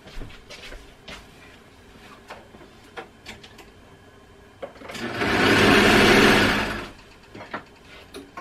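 Sewing machine run in one short burst of about two seconds, starting about five seconds in and dying away again, after a few small handling clicks and knocks.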